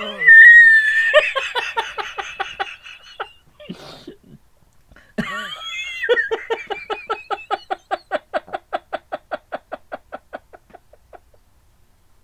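A man laughing hard: a high squeal, then a rapid string of ha-ha pulses about five a second. After a short break comes a second, longer bout that fades out near the end.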